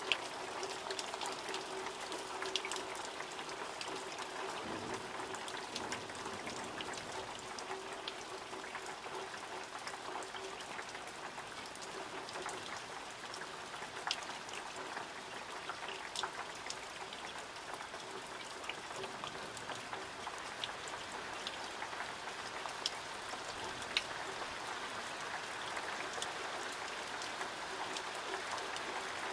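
Steady summer rain falling, with scattered sharp taps of drops striking nearby surfaces.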